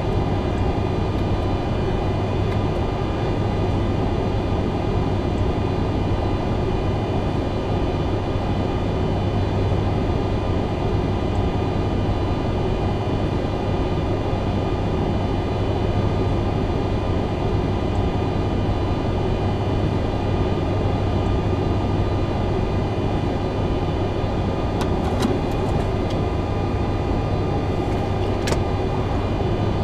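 Steady flight-deck noise of a Boeing 747-400ERF waiting on the ground after engine start: engines at idle and the rush of cabin airflow, with a low hum and faint steady whines. There are a few light clicks near the end.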